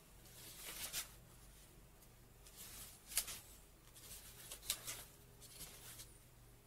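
Pages of a paperback book being flipped through: a few short, soft papery riffles spread a second or two apart.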